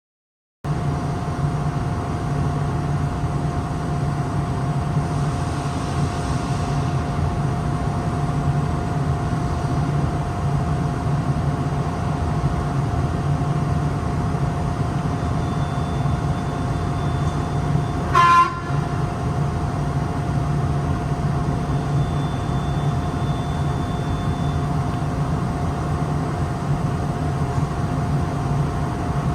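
Steady hum of running industrial machinery with a constant mid-pitched whine. About eighteen seconds in, a short, loud horn-like beep sounds once.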